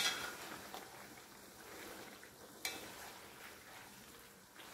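Spatula stirring pieces of dried fish and meat in palm oil in a nonstick pan, knocking sharply against the pan once at the start and again about two and a half seconds in, over faint sizzling.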